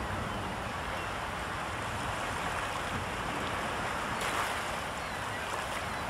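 Waves washing onto a shore in a steady hiss of surf, swelling briefly a little past four seconds in.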